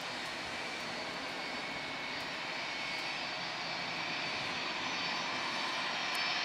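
Airbus A320's twin jet engines at takeoff thrust through the takeoff roll and lift-off: a steady jet noise with high whining tones, slowly growing louder.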